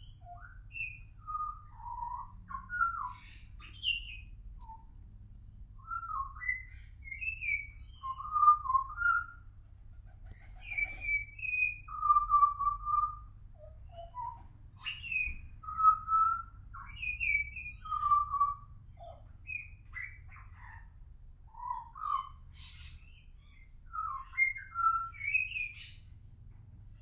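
Juvenile pied butcherbird singing: a long, rambling run of short fluty whistled notes that slide up and down in pitch, given in phrases with brief pauses between them.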